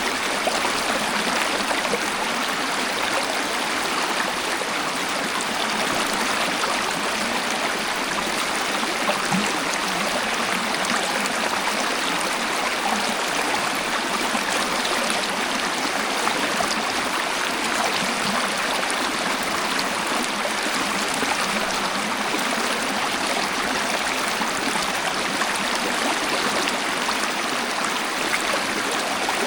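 Waterfall: a steady, unbroken rush of falling water, with little deep rumble.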